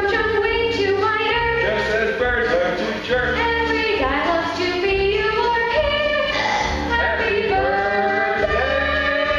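Young cast singing a musical-theatre number with instrumental accompaniment, a girl's voice to the fore.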